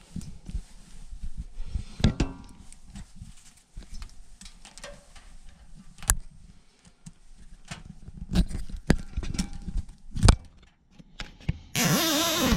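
Scattered clicks, taps and knocks of hands and tools working on a gas furnace while a failed hot surface igniter is swapped. Near the end comes a louder burst of just under a second with a wavering pitch.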